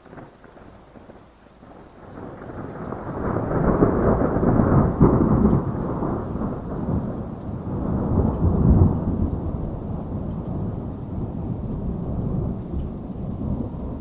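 Thunder rolling over steady rain: a long rumble builds from about two seconds in, swells twice, and slowly dies away near the end.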